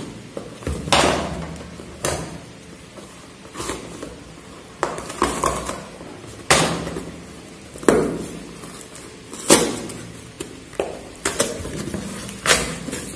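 Hands handling and tearing open a tape-wrapped cardboard parcel: irregular crackles, scrapes and knocks of cardboard and packing tape, a few sharp ones louder than the rest.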